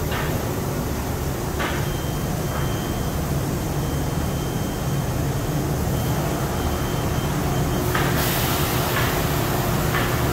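Thermoforming machine and factory equipment running with a steady low hum. About eight seconds in, a rush of air starts and keeps going.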